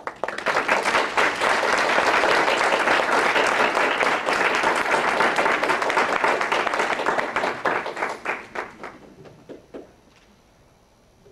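Audience applauding: dense clapping that starts at once, holds for about eight seconds, then thins to a few last claps and stops about ten seconds in.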